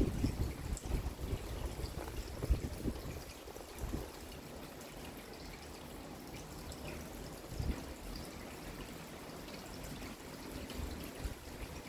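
Rain falling, with water trickling and dripping, and irregular soft low thuds now and then.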